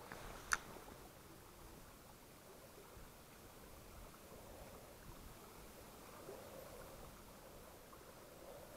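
Faint, steady rush of flowing river water in a partly frozen stream, with one sharp click about half a second in.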